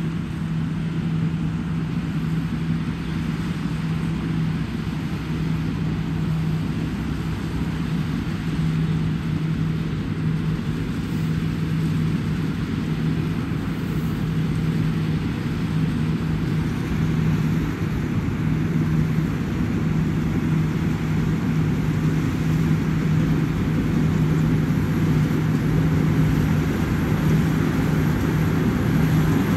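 Rice combine harvester's diesel engine running steadily while it cuts and threshes, a constant low hum over machinery noise, growing slowly louder as it comes closer.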